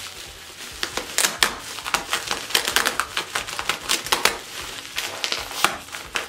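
Plastic bubble wrap crinkling and crackling as it is squeezed and pulled at by hand, with many irregular sharp crackles.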